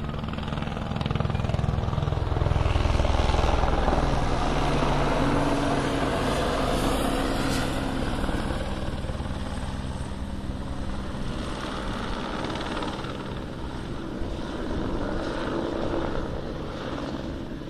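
Police helicopter flying overhead, its rotor and engine running steadily; the sound swells a couple of seconds in and then slowly eases off as it moves away.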